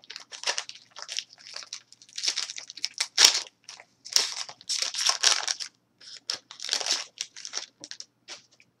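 Foil wrapper of a Topps baseball card jumbo pack being torn open and crinkled, in irregular crackling bursts that die away shortly before the end.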